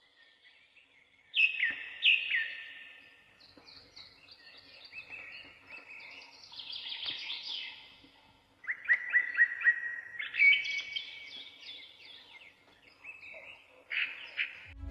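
Several birds singing and calling in a forest-birdsong recording: loud falling whistles near the start, then chirps and quick runs of repeated notes.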